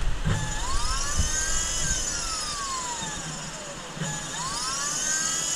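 Volvo electric power steering pump motor spinning up with a rising whine, then slowly winding down. It spins up again about four seconds in and holds a high whine. The pump is on a first test run with no fluid added yet.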